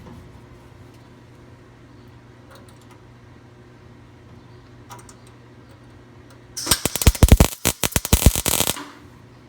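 Gas-shielded MIG welder arc crackling and popping for about two seconds as a tack weld goes onto thin 20-gauge auto-body sheet metal at low voltage. It starts suddenly after several quiet seconds with a few faint clicks, and stops sharply.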